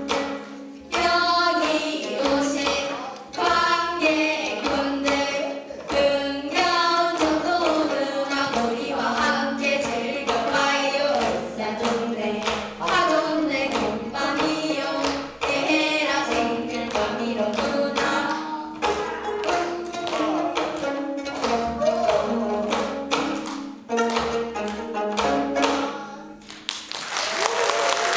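Gayageum byeongchang: several young voices singing a Korean folk song together while plucking gayageum, the Korean twelve-string zither, in sharp rhythmic strokes. The music ends near the end and applause starts.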